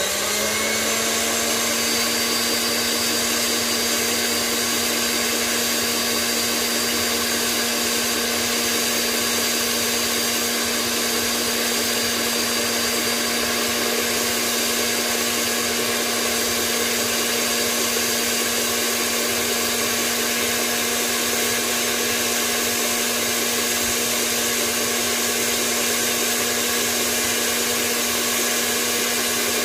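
KitchenAid Ultra Power stand mixer running on its top speed, its wire whip beating egg whites and sugar in a steel bowl toward stiff peaks: a steady motor whine that rises slightly in pitch in the first second and then holds.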